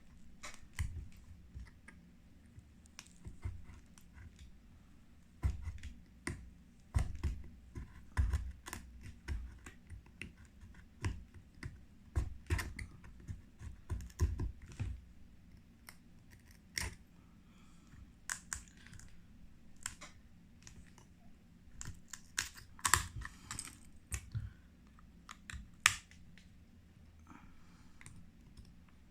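Cracked phone back glass being chipped and scraped off with small hand tools after laser treatment: irregular sharp clicks and taps, several a second, with a few short scraping spells in the second half.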